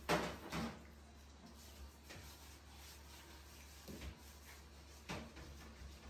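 Plastic baby feeding bottle knocking over onto a tiled floor: two sharp knocks about half a second apart at the start, followed by a few fainter clicks.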